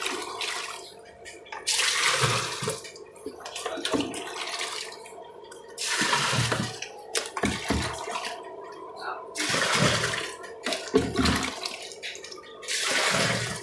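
Water poured from a plastic mug into a drum filter bed of stones, splashing in about four or five separate pours a few seconds apart, filling the filter to its working water level.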